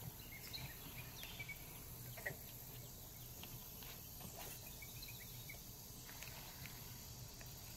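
Faint outdoor ambience: a steady high insect drone, with a few faint short chirps and small clicks.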